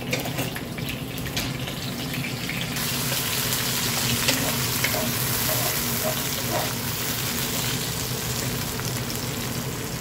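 Onions and tomato sizzling in hot oil in a wok, stirred with a wooden spatula, with a few light scrapes. The sizzle grows louder about three seconds in.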